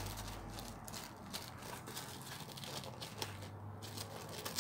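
Faint rustling and crinkling of tissue-paper parcel wrapping as it is handled and cut with scissors, with small scattered snips and ticks.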